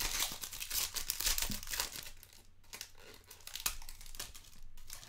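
Foil wrapper of a Select Soccer Euro 2020 trading card pack crinkling and tearing as it is pulled open by hand. It is busiest in the first two seconds, with a sharp crackle past the middle.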